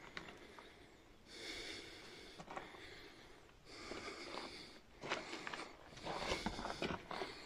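A person breathing heavily close to the microphone, three long breaths a second or so apart, with small scrapes and clicks from moving over loose cave rock during the last one.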